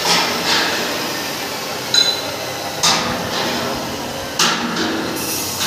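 Hammer blows on steel, about six irregular strikes a second or so apart. The strike about two seconds in rings briefly with a metallic tone.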